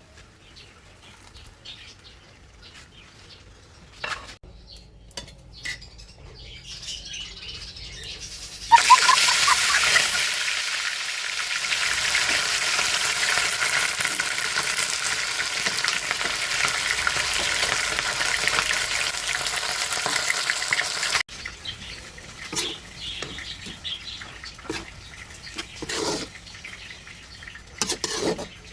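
Food frying in hot oil in a pan, a loud steady sizzle that starts suddenly about nine seconds in and cuts off abruptly about twelve seconds later. Light clicks and knocks of kitchen utensils come before and after it.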